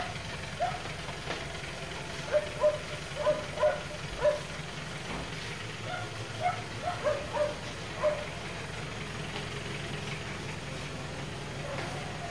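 A dog barking in two quick bouts of about five barks each, over a steady low hum.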